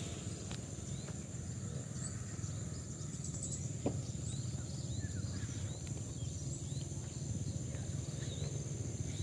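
Rice-field ambience: a steady high-pitched insect drone with short bird chirps scattered throughout, over a steady low rumble. A single brief tap about four seconds in.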